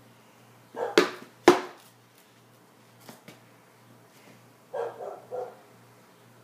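A person coughing: two hard coughs about a second in, then three quicker, weaker coughs near the end.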